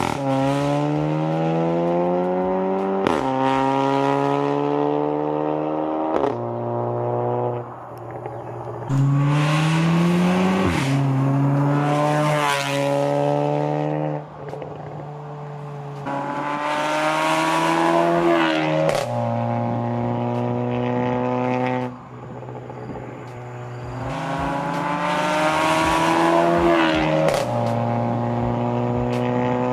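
Porsche Macan 2.0T's turbocharged four-cylinder engine through a valvetronic catback with catless downpipe, accelerating hard in several flyby runs. The note climbs through each gear and drops sharply at each upshift, with loud rushes as the car passes close.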